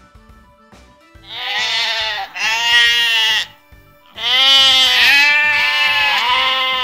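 Sheep bleating: two bleats about a second apart, then a longer one from about four seconds in, over soft background music with a steady beat.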